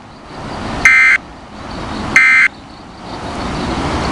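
Two short, loud bursts of warbling digital data tones from a weather radio broadcast, the SAME alert code of the weekly and monthly test, each about a third of a second long and about 1.3 seconds apart. Their shortness fits the end-of-message code. Radio hiss fills the gaps and swells near the end.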